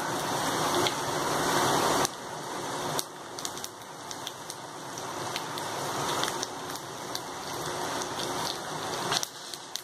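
Tempering spices and dry red chillies frying in hot oil in a kadai: steady sizzling with many small pops and crackles. It is loudest for the first two seconds, then drops abruptly.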